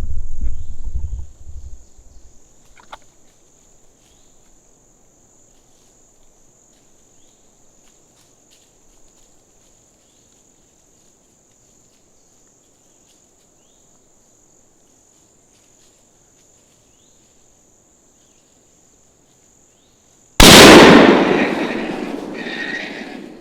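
A steady high insect drone, then about twenty seconds in a single very loud gunshot that rings away over a few seconds: the shot fired at a hog.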